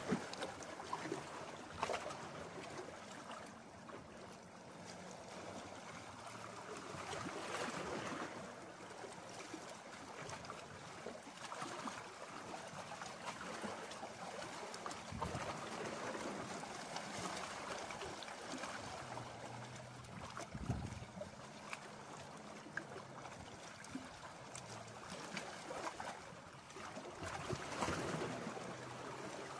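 Small sea waves lapping and washing against shore rocks, the wash swelling and easing every few seconds with small splashes.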